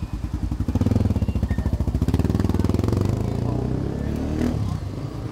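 A motorcycle engine running close by, a rapid even pulsing that is loudest in the first few seconds and eases off near the end.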